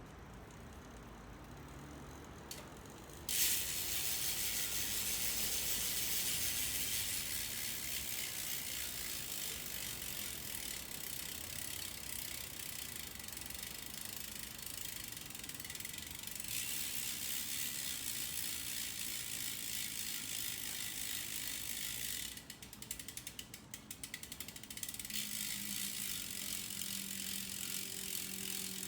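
Freehub of the ENVE carbon rear hub on a road bike ratcheting as the rear wheel freewheels. It starts about three seconds in as a fast, dense buzz of pawl clicks, slows into separate clicks for a few seconds near the end, then speeds up again.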